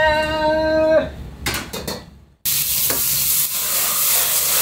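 Food frying in hot oil with a loud, steady sizzle, starting abruptly a little past halfway through, after a drawn-out called-out voice that ends about a second in.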